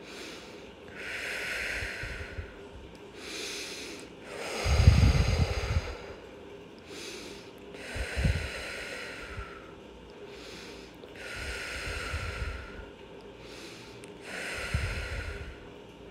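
A woman breathing slowly and deeply, in and out, with an audible hiss of air on each breath. The heaviest breath comes about five seconds in.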